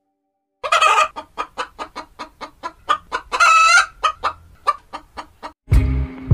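Chickens clucking: a quick run of short clucks, about three a second, with one longer drawn-out cluck in the middle. Near the end a deep, low sound cuts in.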